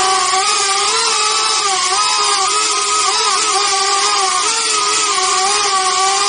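Electric motors of a small FPV quadcopter drone whining steadily, several pitches wavering and crossing as the motors speed up and slow down in flight.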